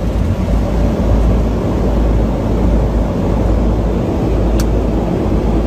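Airliner cockpit noise during the landing roll: a steady, loud rumble with the aircraft rolling on the runway just after touchdown. A single short click about four and a half seconds in.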